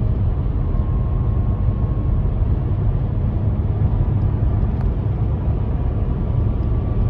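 Steady low rumble of a car driving, heard from inside the cabin, with a faint thin whine held over it.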